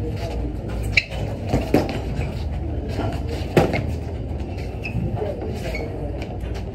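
Boxing gloves landing in sparring: a few sharp punch impacts, the loudest about three and a half seconds in, with short high squeaks of shoes on the gym floor, over a steady room hum.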